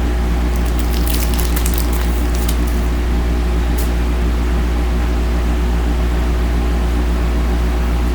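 Loud, steady electrical mains hum with hiss, a buzz of evenly spaced tones that does not change. A few light crinkles and clicks, about one to two and a half seconds in and once near four seconds, come from handling a trading-card pack.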